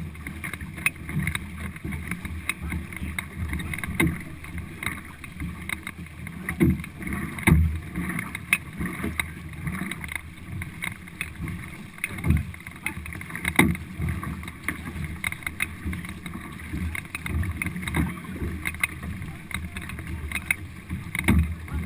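Four-paddler stock racing canoe under way at racing pace: paddle blades splashing into the water stroke after stroke, water rushing along the hull, and wind buffeting the microphone. Irregular louder thumps and splashes stand out now and then.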